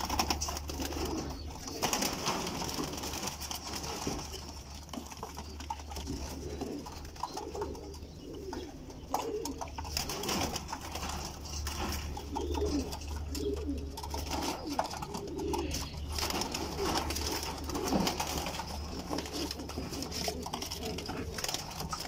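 Domestic pigeons cooing, many rounded coos overlapping and repeating throughout, with scattered clicks and rustles from a bird being handled and its wing spread. A steady low hum runs underneath.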